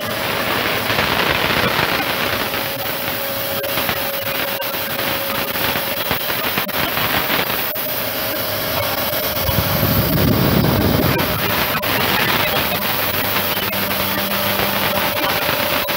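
Toscopia DLH lock-mortising machine running, a steady whine over loud continuous machining noise, with a heavier low rumble for a couple of seconds about ten seconds in.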